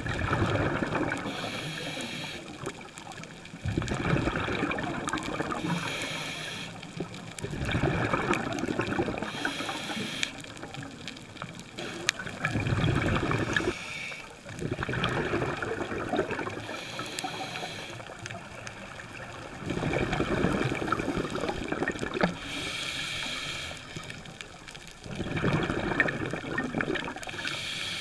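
Scuba diver breathing through a regulator underwater: bubbling exhalations about every four seconds, with a short hiss from the regulator between them.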